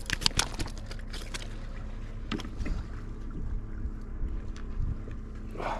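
A large wrasse flapping and slapping against the concrete pier, a quick run of knocks for about the first second and a half and a few more taps later, over a steady low drone.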